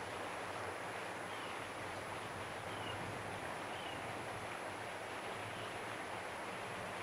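Steady wash of calm seawater lapping around a wading angler, with three faint, short high chirps a second or so apart.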